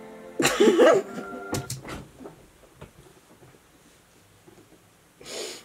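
A man's short wordless vocal sound with a wavering pitch about half a second in. A few faint clicks follow, and near the end a short breathy noise.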